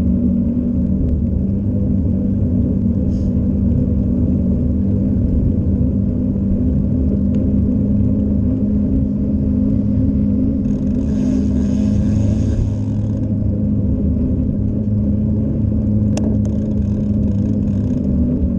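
Steady low rumble of a tyre rolling over asphalt, with wind noise on the camera microphone. A hissing stretch comes about two-thirds of the way through, then a single sharp click near the end.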